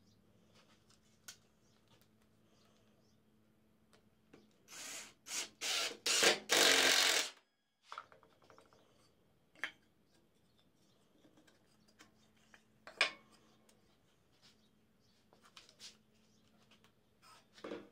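Cordless impact driver driving a screw into wood in several short trigger bursts about five seconds in, the last burst the longest. Light knocks and clicks of wood and tool being handled come before and after.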